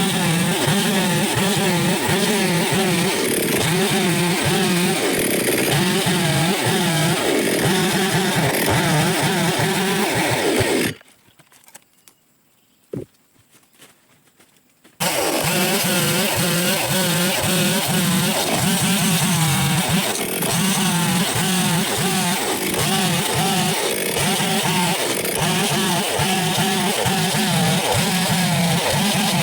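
Chainsaw engine running loud, its pitch wavering up and down as it works. Around ten seconds in, the sound cuts out to near silence for about four seconds, with a single brief click, then the saw is running again.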